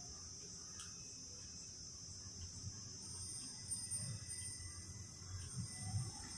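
Faint rustling and soft bumps of hands winding and knotting cotton thread around a glass beer bottle, over a steady high-pitched hiss.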